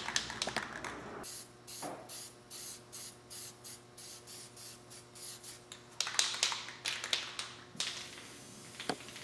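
Aerosol rattle can of Rust-Oleum satin oil-based paint hissing in a run of short, quick bursts, then one longer burst about six seconds in: light mist coats laid over a stencil, each allowed to flash off.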